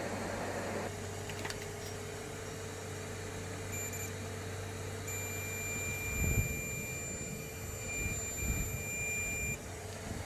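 A rush of air stops about a second in. Then a multimeter's continuity buzzer beeps briefly, and a few seconds later it sounds as one long steady beep of about four seconds: the probed line still reads as shorted. A low steady hum runs underneath, with a few light knocks of handling.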